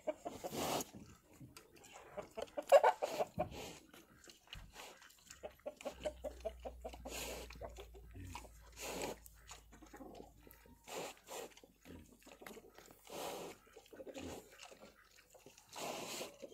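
Chickens clucking: many short, separate clucks throughout, the loudest about three seconds in.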